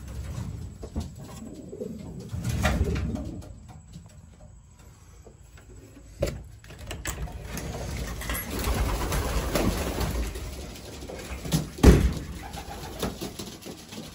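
Racing pigeons cooing, with a few sharp clicks and knocks; the loudest knock comes near the end.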